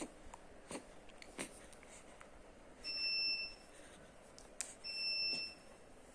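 Two electronic beeps about two seconds apart, each a steady tone lasting just under a second, with a few faint clicks around them.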